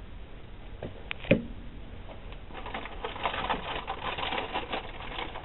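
Close handling noises: a sharp knock about a second in, then two or three seconds of quick, dense clicking and scraping.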